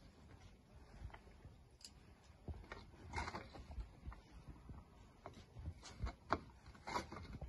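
Fingers scraping and picking up chopped onion from a metal tray, with scattered light taps and clicks on the metal.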